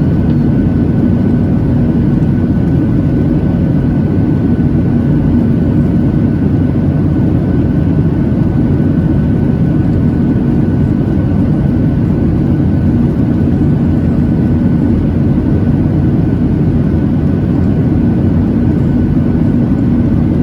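Steady engine noise heard inside the cabin of a Boeing 737-800 during the climb after takeoff, from its CFM56-7B turbofans. A low, even rumble with a steady hum and a faint high whine above it, unchanging throughout.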